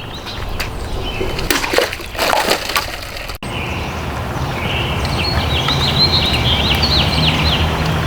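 Large folding knife slashing water-filled plastic bottles: a few sharp strikes between about one and a half and three seconds in, then water splashing and trickling out of the cut bottles. Birds chirp in the background near the end.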